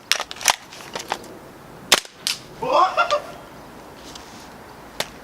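Sharp clacks and a pop from a WE HK416 gas blowback airsoft rifle being loaded and fired once, the bolt cycling with the shot. A short shout comes about three seconds in, and there is one more click near the end.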